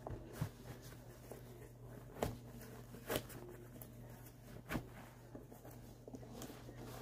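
Faint rustling and a few short knocks as canvas high-top sneakers are pulled on and laced up, over a steady low hum.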